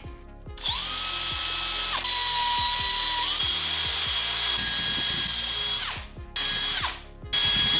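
Cordless drill with an 1/8-inch bit boring through the rubber lug of a snowmobile track. The motor runs steadily for about five seconds, its whine dropping in pitch about two seconds in and rising again a little later, then two short bursts follow near the end.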